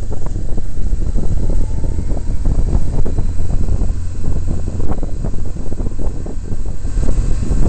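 Wind buffeting the microphone of a camera mounted on a moving motorcycle: a loud, uneven rumble with constant small gusts, and the motorcycle's engine running underneath.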